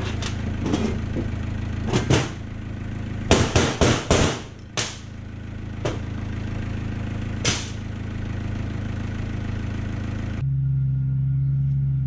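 Stripped hydraulic fan pump parts, an aluminium housing and small steel pieces, being handled and set down on a metal workbench: a handful of sharp metal knocks and clunks, bunched together about two to four seconds in, over a steady low machine hum.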